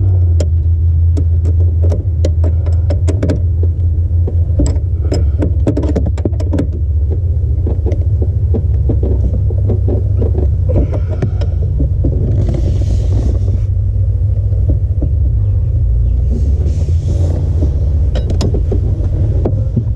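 Metal clicks and taps of a 12 mm wrench working the lock nut on a clutch master cylinder pushrod, over a steady low rumble. The clicks come thick and fast for the first seven seconds, then thin out, with a few brief rustles later.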